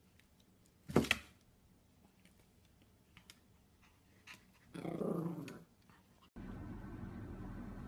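Pomeranian giving one short, sharp bark about a second in, then a longer, wavering call near the five-second mark. A steady low hum starts abruptly near the end.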